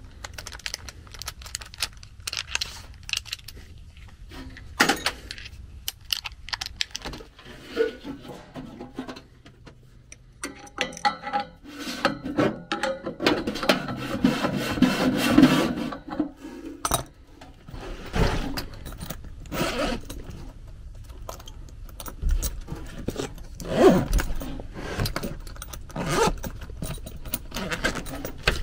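Hand tools clinking, clicking and scraping on a furnace blower wheel's hub and set screw. The clicks come scattered, with a busier stretch of scraping and clinking about halfway through.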